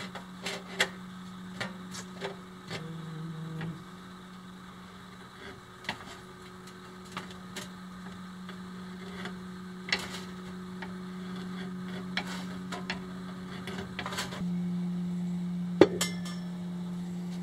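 Sheet steel being worked in a bench-mounted hand-lever metal tool: scattered sharp metallic clicks and clanks from the lever and the sheet, over a steady low hum.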